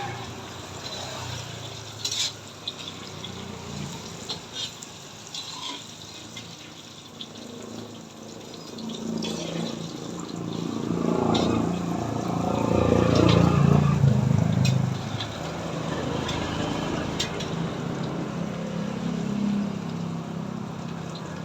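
Banana turon frying in oil, with scattered sharp pops and crackles. A louder, lower rushing sound swells up around the middle and fades back.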